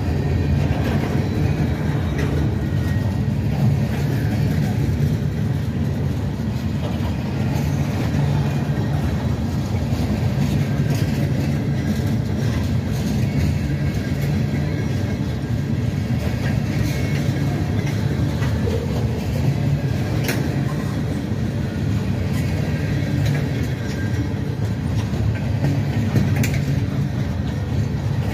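A train rolling by with a steady low rumble, and a couple of sharp clicks from the wheels on the rails in the last third.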